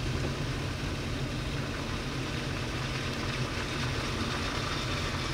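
A motor vehicle's engine running steadily, a low hum with no breaks or changes.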